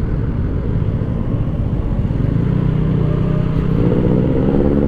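Yamaha Aerox 155 scooter's single-cylinder engine running while riding, over a steady low rumble, its note rising from about three and a half seconds in as it revs up.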